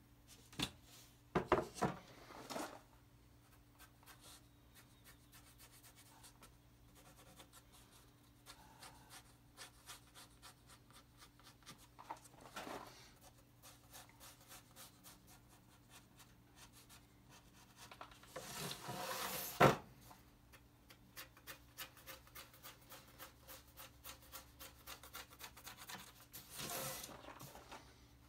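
Quiet hand work on a piece of 3/8-inch plywood: short rubbing and scraping strokes with a run of light ticks about twice a second, a few knocks in the first seconds, and a longer scrape about two-thirds through that ends in a sharp click.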